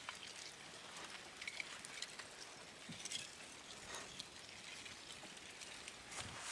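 Slow-moving front of a blocky ʻaʻā lava flow: faint, scattered crackling and clinking as cooling crust breaks and rock blocks shift and tumble.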